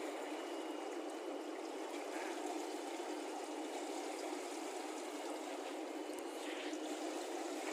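Water running steadily in a swimming pool, an even rushing hiss with no breaks.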